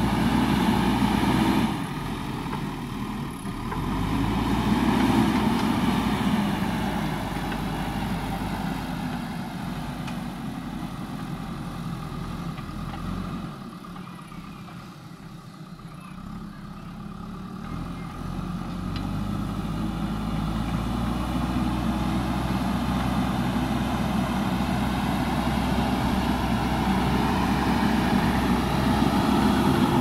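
JCB 3DX Super backhoe loader's diesel engine working as the front bucket pushes and levels soil, its note swelling and easing with the load. It grows quieter in the middle, while the machine works farther away, then louder again near the end.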